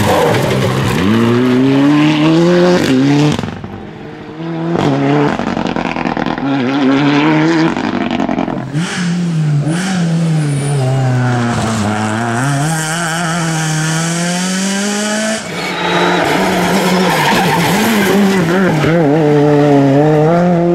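Rally cars at full speed one after another, among them an Abarth 124 Rally and a Citroën C3. Their engines rev hard and drop back again and again through gear changes and braking.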